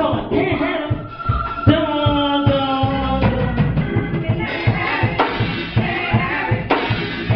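Live gospel music: singing over a drum kit and band, with a steady beat.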